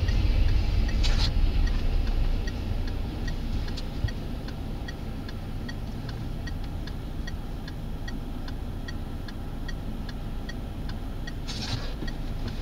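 Car turn-signal indicator ticking at an even rate inside the cabin, over the low rumble of the engine and road. The rumble is louder for the first couple of seconds.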